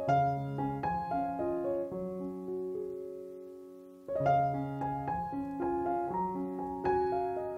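Background piano music: a soft melody of struck notes, with a held chord that fades away about halfway through before the playing picks up again.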